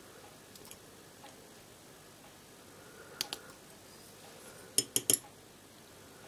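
Light clicks and ticks of a hobby knife's metal blade working against a LEGO pneumatic switch's plastic body as stopper pieces are shaved off. A quick run of sharper clicks about five seconds in is the loudest moment.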